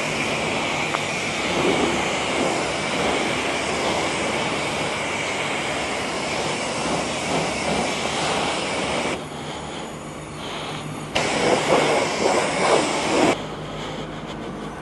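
High-pressure car-wash lance spraying water onto a motorcycle: a steady hissing spray with a thin high whine. The spray cuts off about nine seconds in, comes back two seconds later, and stops again shortly before the end, leaving a low hum.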